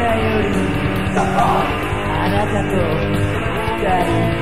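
Heavy metal band recording playing loud: distorted electric guitars, bass and drums in a dense, full mix.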